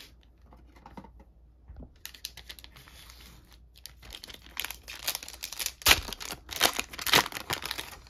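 Foil trading-card booster pack crinkling and tearing as it is opened by hand. It is quiet at first, then turns into dense crackling from about four seconds in, loudest near the end.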